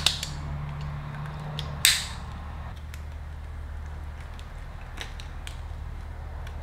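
Plastic clicks and light handling ticks from an aftermarket ECU and its harness connector being worked into a rubber mounting boot. Two sharp clicks, one at the start and a louder one about two seconds in, then small scattered ticks over a steady low hum.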